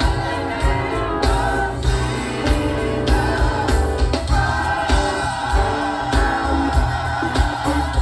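Live gospel music: a choir sings in harmony over a band with a heavy bass line and a steady drum beat.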